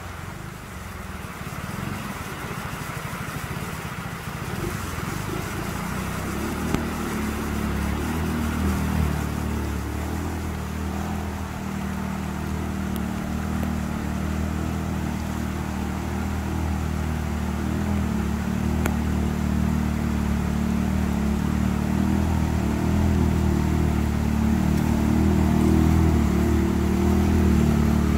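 Segway 600 L 4x4 ATV's engine running as it wades through a fast river, growing steadily louder as it comes closer, over the rush of the flowing water.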